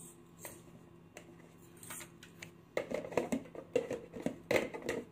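Plastic food tub's lid being handled and pressed shut: a few faint taps, then about three seconds in a run of crackly plastic clicks and knocks.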